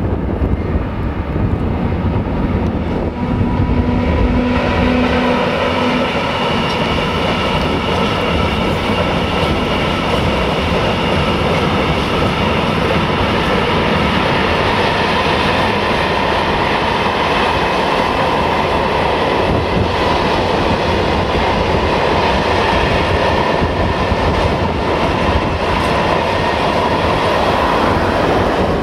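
Freight train of open wagons behind an OSE class 120 (Siemens ES64) electric locomotive passing at speed: a steady rumble and rattle of wheels on the rails, with clickety-clack and a few steady ringing tones over it.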